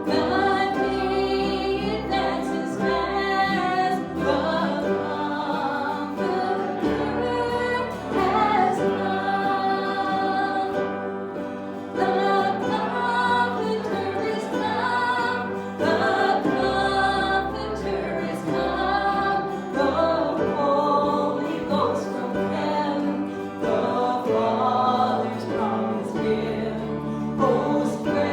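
A church congregation singing a worship song with instrumental accompaniment, over a held bass line that changes chord every few seconds.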